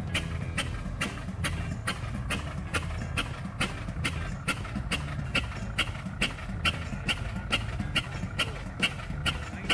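1907 Waterous fire pumper's 16 hp gas engine running slowly. Its firing gives a sharp, regular beat a little over twice a second over a low rumble.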